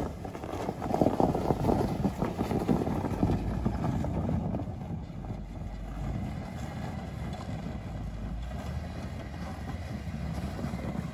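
A motor vehicle running on the move, with wind buffeting the microphone, heaviest in the first few seconds before settling into a steadier low rumble.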